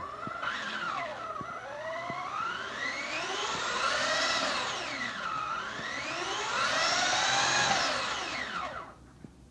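Traxxas RC car's motor and drivetrain whining as it is throttled up with the wheels spinning. The pitch rises twice, peaking about four seconds and seven and a half seconds in, then falls and stops near the end.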